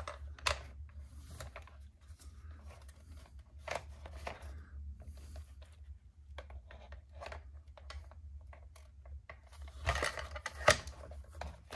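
Small clicks, taps and scrapes of plastic and metal parts as an aluminum drive shaft is worked into place in an RC car's chassis, with a steady low hum underneath. A quick run of sharper clicks comes about ten seconds in.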